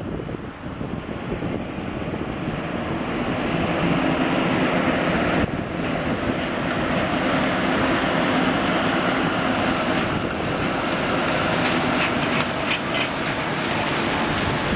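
Truck engine running steadily, with wind noise on the microphone.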